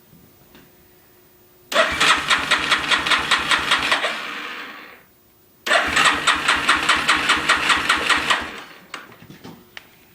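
Yamaha Warrior 350 quad's single-cylinder engine turned over twice on its electric starter, each try a rapid, even chugging of about six strokes a second for two to three seconds that winds down without the engine catching. It fails to start after a starter-clutch replacement, and the cause is unknown to the owner.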